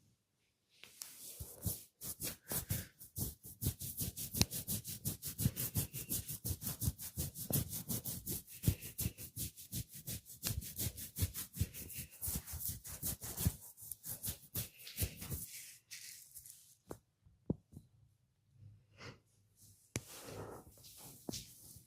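Hands massaging skin with a fast, even run of slapping or rubbing strokes, about five a second, which stops about fifteen seconds in, followed by a few scattered softer strokes and rubs.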